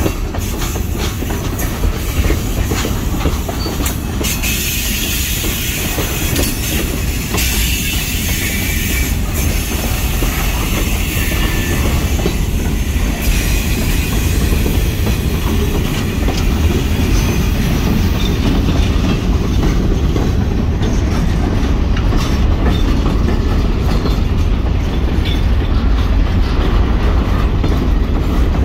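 Freight train cars rolling past close by, with a steady low rumble and wheels clicking over the rail joints. A high hiss of wheel noise comes in about four seconds in and fades after about ten seconds.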